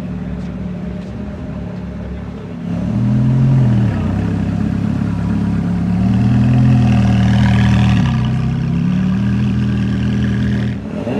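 Car engine running, revving up briefly about three seconds in and again for about two seconds in the middle, then settling back to a steady run.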